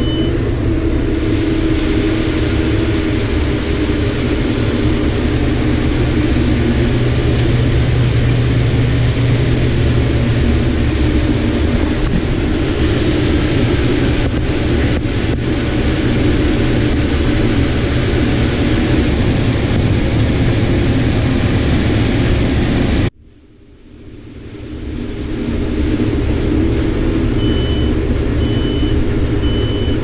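Combine harvester running steadily while cutting corn, heard from inside the cab: a dense, even drone of engine and threshing. It cuts off suddenly about three-quarters of the way through and swells back in, and three short high beeps sound near the end.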